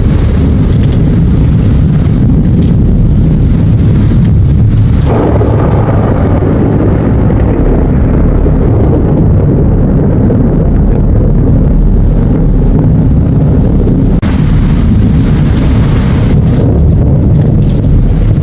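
Heavy rainstorm with strong wind: a loud, continuous low roar, mostly wind buffeting the microphone, rising in intensity about five seconds in and again about fourteen seconds in.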